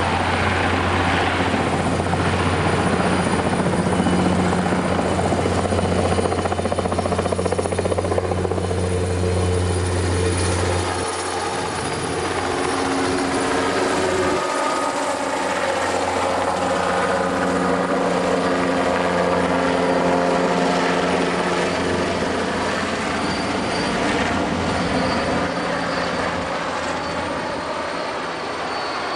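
Heavy-lift helicopter flying low overhead, its rotor and engine making a steady drone. A deep low hum dominates for about the first eleven seconds, then drops away, leaving a higher engine drone with tones that shift in pitch as it moves past.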